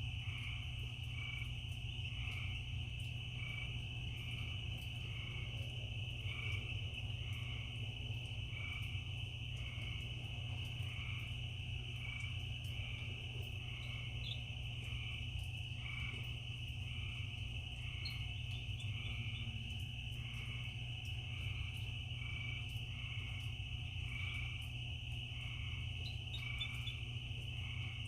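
Night chorus of crickets and frogs: a steady high cricket trill, with a frog call repeating about once a second. A few brief higher chirps stand out near the middle and toward the end, over a steady low rumble.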